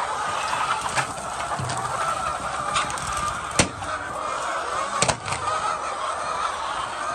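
A flock of egg-laying chickens clucking and chattering together in a continuous din, with three sharp knocks, the loudest about three and a half seconds in.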